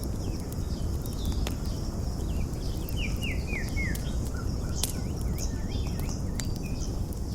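Campfire crackling, with a few sharp pops over a steady low rush, while birds chirp throughout. About three seconds in comes a quick run of four falling notes.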